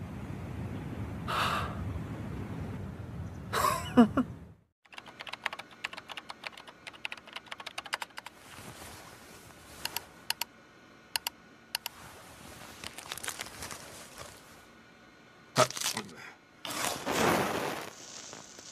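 A low rumble that cuts off after a few seconds. Then about ten seconds of soft, irregular clicking of a computer mouse and keyboard. Near the end comes a sharp strike and a short hissing flare: a match being lit.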